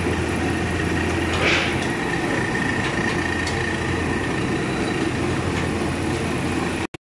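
Steady low mechanical hum, like a running engine or motor, over constant background noise.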